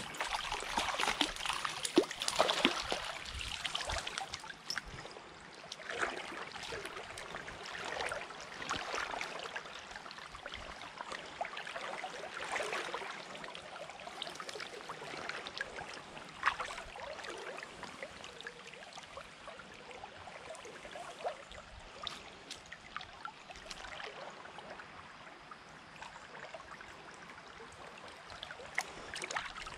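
Shallow stream water flowing and trickling, with irregular splashes and sloshing in the water that are busiest and loudest in the first few seconds.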